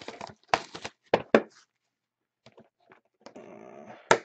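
A shrink-wrapped cardboard box of trading cards being handled and unwrapped: plastic wrap crackling and cardboard snapping in a few sharp clicks. A rustling scrape near the end finishes in one last snap.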